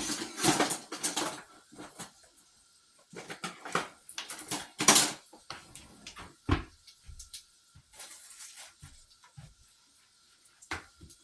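Irregular clatter and scraping of a utensil against a cooking pot, busiest at the start and again a few seconds in, with one heavy knock past the middle; curry powder is being toasted in hot oil in the pot.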